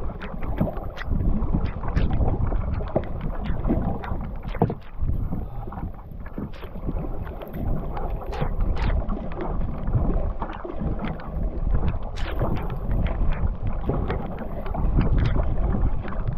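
Canoe being paddled across a lake: irregular splashes and drips from the paddle over a heavy, steady rumble of wind buffeting the microphone.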